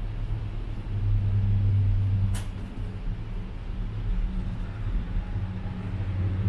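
A steady low mechanical hum, like a vehicle or machine running, with one sharp click about two and a half seconds in.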